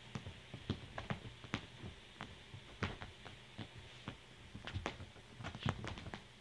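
A kitten's paws tapping and thumping irregularly on a fabric couch cushion as it spins and pounces after its own tail.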